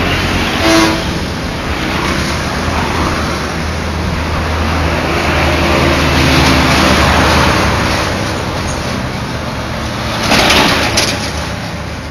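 Road traffic passing on a busy road: a steady rush of cars, motorbikes and heavy vehicles going by. A short horn toot sounds about a second in, and two loud rushes of noise come near the end.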